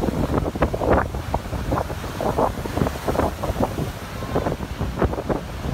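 Wind buffeting the microphone in uneven gusts, over the rush of heavy surf breaking in whitewater.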